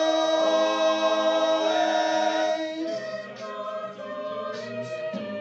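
A cappella vocal group holding a sustained chord without instruments; the chord is released about three seconds in and the singing continues more quietly with moving notes and soft sibilant consonants.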